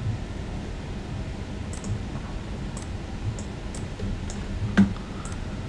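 Scattered light clicks of a computer mouse, starting a couple of seconds in and coming about one or two a second, the firmest one near the end, over a steady low hum.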